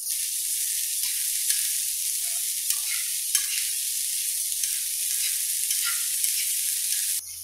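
Diced bell peppers and beans sizzling in butter in a non-stick frying pan while being stirred with a spatula, with a few light taps and scrapes of the spatula on the pan. The sizzle cuts off suddenly near the end.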